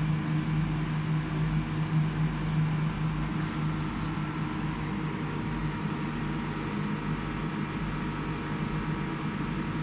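Steady hum of a CO2 laser cutting machine standing powered on with its accessories (water chiller, exhaust fan, air-assist pump): a low drone with a faint high whine that fades out about four seconds in.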